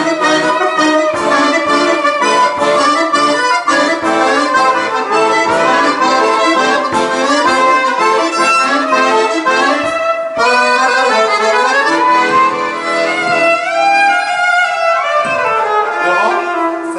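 Accordion playing a fast, lively tune in chords and runs, breaking off briefly about ten seconds in, then going on with slower held and sliding notes.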